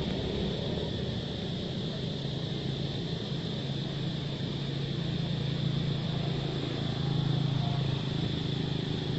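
Steady low engine hum, stronger through the middle of the stretch, over a constant high-pitched drone.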